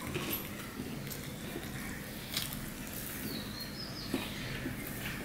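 Fingers mixing rice and curry on a steel plate: soft squelches with a few sharp clicks of fingertips against the metal. A short high-pitched chirp sounds about three seconds in.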